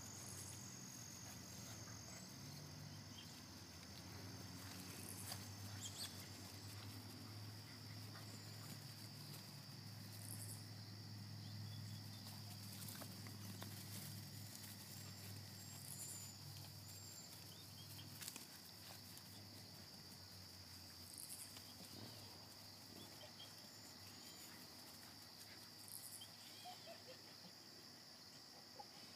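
Faint, steady high-pitched chorus of insects, with a low hum underneath that fades out about halfway through. A few faint scuffs and ticks from puppies scampering on grass.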